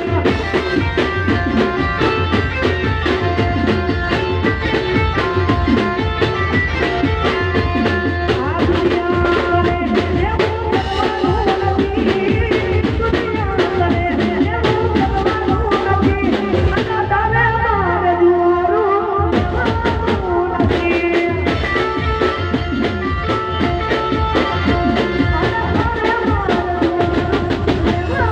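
Live Gujarati folk music played loud through a PA: a woman singing into a microphone over dhol, drum kit and keyboard.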